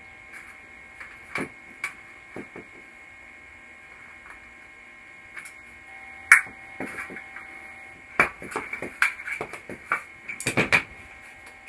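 Hand work on an aluminium aircraft spar on a workbench: scattered clicks and taps of small metal parts and tools. A single sharp click comes about six seconds in, and a run of quicker clicks and knocks follows from about eight seconds, over a faint steady hum.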